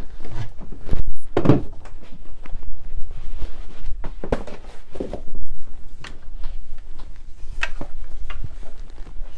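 Handling noise as a padded mat is spread over a workbench and an antique wooden chair is lifted and turned upside down onto it: a string of irregular wooden knocks and thunks, the loudest about a second in and again around five seconds in, with cloth rustling between them.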